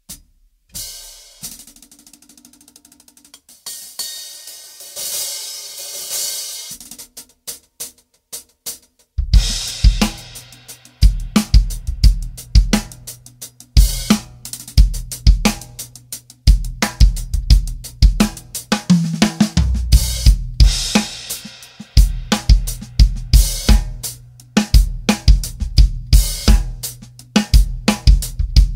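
Drum kit played with a hi-hat made of two thin 16-inch crash cymbals, a Paiste 802 as the bottom and a Paiste 505 on top. The hi-hat plays alone at first; about nine seconds in, bass drum and snare join in a steady groove. The hats sound sharper and brighter than regular hi-hats.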